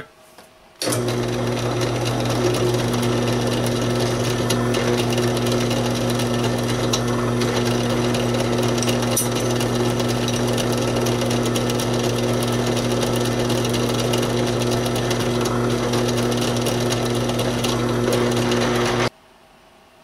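Benchtop drill press running with a steady hum while a chamfer bit countersinks the screw holes in a metal knife pocket clip. It starts about a second in and cuts off about a second before the end.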